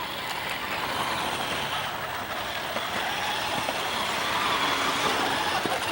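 Remote-control toy trucks' small electric motors running with a steady whirring noise that swells slightly near the end.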